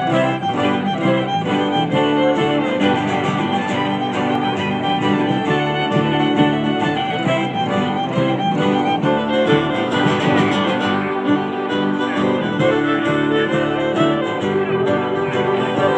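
Music: a fiddle and guitar tune played steadily.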